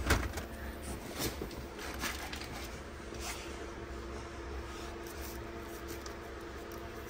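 Faint rustling and light clicks of a gloved hand handling wiring and plastic trim around the steering column, over a steady low hum.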